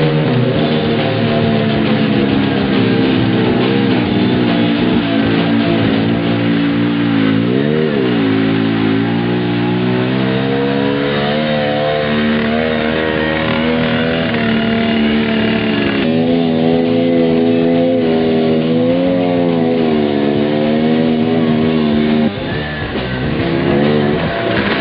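An off-road vehicle's engine rising and falling in pitch several times as it revs, mixed with rock music with guitar.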